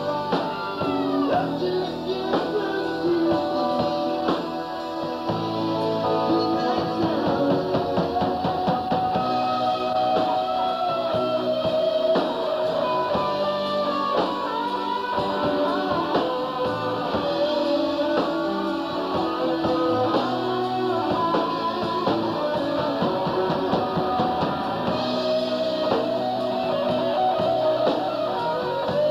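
Live rock band playing: electric guitar, bass and drum kit, with a sustained lead melody that bends in pitch.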